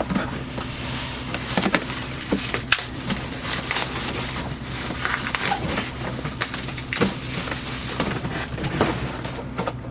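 Cardboard and packing material rustling and crinkling as a parts box is opened and handled, with frequent sharp clicks and snaps, over a steady low hum.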